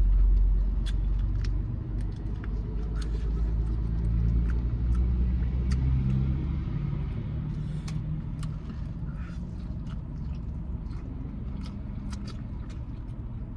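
A motor vehicle's engine rumble, loud at first and fading away after about six or seven seconds, with small clicks and eating sounds over it.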